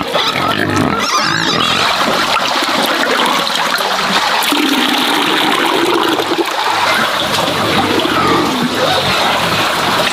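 Liquid pig swill splashing and pouring in a bucket, a steady rushing of water. Pigs squeal briefly in the first second or two.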